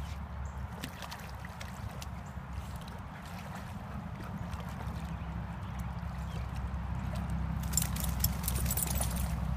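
A dog swimming and wading through shallow muddy water, the water sloshing and gurgling around it over a steady low rumble. About eight seconds in, as it stands and walks, there is a short run of sharper splashing.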